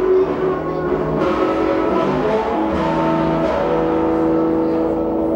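Live music: long, held pitched tones that shift from note to note, with one note sustained through the second half.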